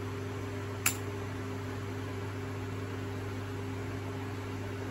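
A steady low mechanical hum with a few held tones, and a single sharp click just under a second in: a keyboard key pressed to confirm Quit in a terminal menu.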